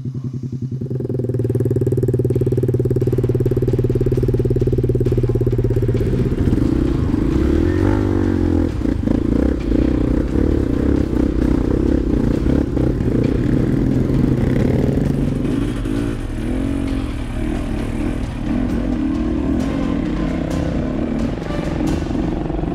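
Dirt bike engine running, picking up about a second in, then rising and falling with the throttle while riding a rough trail, with a few knocks near the end.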